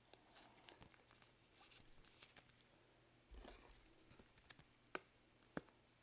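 Near silence with faint rustling and light ticks of trading cards being slid and handled by gloved hands, and two sharper clicks about five seconds in.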